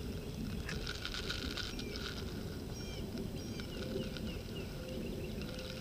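A small bird chirps a quick run of short, falling high notes about three seconds in, over a low steady rumble.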